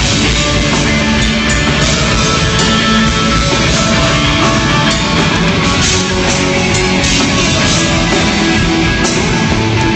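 A rock band playing live and loud on stage, with electric guitar, heard through a phone's livestream recording with the highs cut off.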